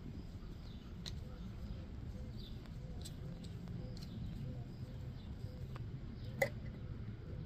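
Faint outdoor ambience: a steady low rumble of wind on the microphone, a few faint bird chirps, and a handful of small clicks, the sharpest about six and a half seconds in.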